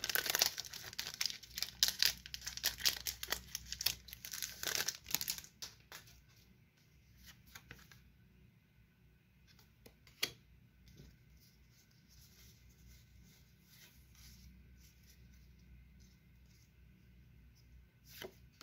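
Foil booster-pack wrapper being torn open and crinkled for the first several seconds, then quieter handling of the trading cards, with a single sharp click a little after ten seconds in.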